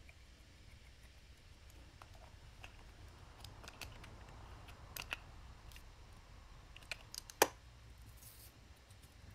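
Faint scattered clicks and taps of small metal parts and a wrench as an air compressor's pressure regulator is reassembled by hand, with a sharper click about seven seconds in. Near the end there is a brief faint rasp as Teflon tape is pulled off the roll.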